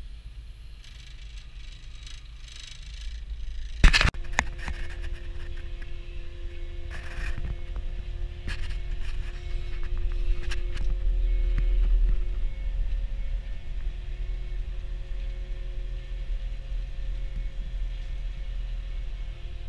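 Merlo telehandler engine running, heard from inside its cab as a steady low rumble. About four seconds in there is one sharp, loud clunk, followed by scattered rattles and a steady whine, with the engine getting louder and peaking around twelve seconds in.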